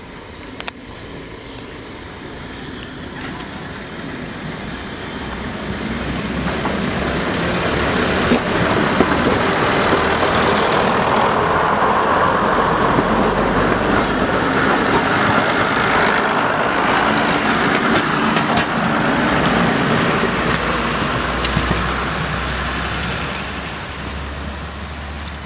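Class 108 diesel mechanical multiple unit passing close by, its diesel engines running and its wheels running on the rails. The sound builds over several seconds, stays loud through the middle and fades toward the end.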